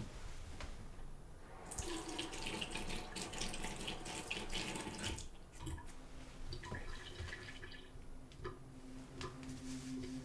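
Water running from a tap into a sink for about three seconds, then a low steady drone of ambient music fades in near the end.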